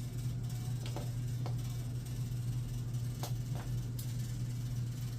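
Whirlpool top-load washer starting its calibration mode: a steady low hum with a few short light clicks.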